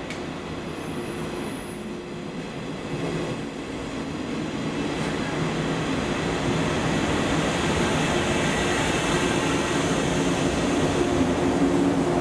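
JNR 185-series electric train pulling into the platform and running past close by, growing steadily louder as its cars roll by, with a steady low hum over the rolling noise of the wheels.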